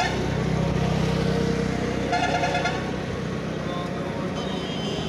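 Road traffic: a motor vehicle's engine rumbles past, and a vehicle horn honks once briefly about two seconds in.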